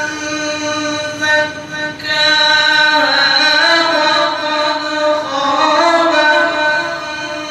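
A man's solo, unaccompanied voice chanting an Islamic recitation, long held notes with ornamented pitch glides, louder from about two seconds in.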